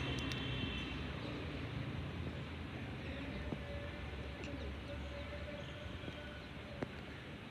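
Steady outdoor background noise with a low rumble like distant traffic. A faint steady tone is held from a few seconds in, and a couple of light clicks come near the middle and near the end.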